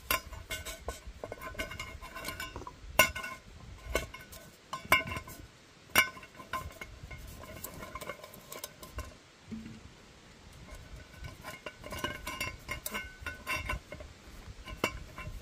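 Titanium camping pot clinking and ringing as it is handled and fitted over a gas canister stove, its folding wire handles rattling against the metal. It gives sharp metallic knocks, the loudest about three, four, five and six seconds in, and a run of lighter clinks near the end.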